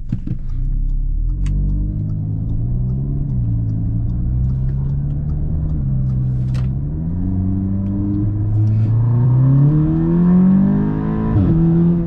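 Audi S3's turbocharged 2.0-litre four-cylinder accelerating hard under boost, with a raspy note. The revs climb and drop sharply three times as the DSG gearbox snaps through upshifts.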